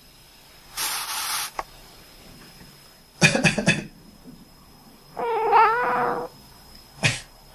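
A person coughs in a quick cluster of short bursts. About two seconds later a cat answers with one drawn-out, wavering meow, and one more short cough comes near the end. Earlier, about a second in, there is a brief breathy rush of noise.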